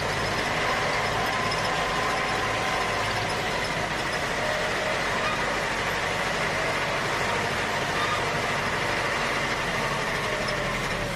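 Small electric motor of a toy tractor running steadily, an even whir with a faint high whine.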